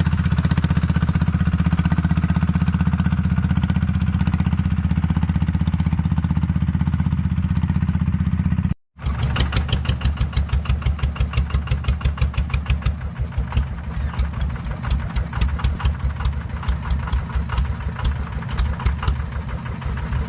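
An engine running steadily. It cuts out for an instant just under halfway through, then comes back with an uneven, pulsing beat and clatter.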